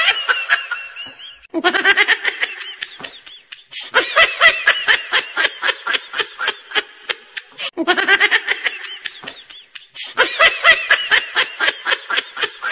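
High-pitched laughter in long bouts of rapid pulses, the same laugh repeating about every six seconds, like a looped laugh track.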